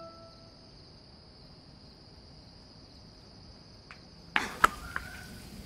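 Steady, high-pitched insect chirring in the background ambience. A few sharp clicks or knocks come about four seconds in.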